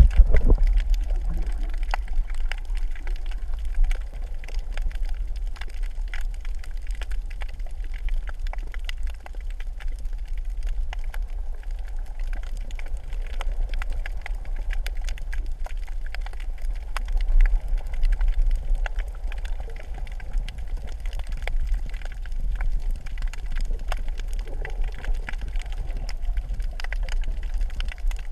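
Underwater sound picked up by a submerged camera: a steady low rumble of moving water, with faint, scattered crackling clicks throughout.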